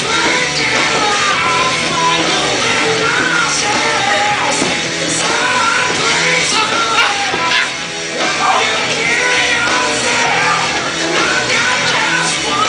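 Music with a singing voice, rock in style, playing loudly and steadily.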